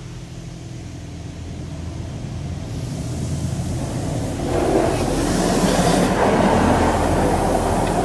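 WashWorld Razor touch-free car wash spraying water and colored foam against the car, heard from inside the cabin as a rushing spray over a steady low hum. The spray grows louder and is loudest from about halfway through, as the jets hit the side windows.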